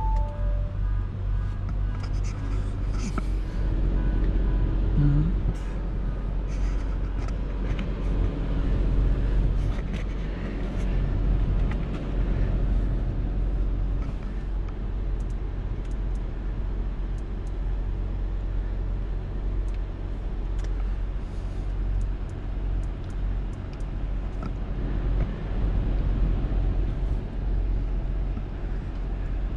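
Audi Q7 running, a steady low engine and road rumble with scattered light clicks.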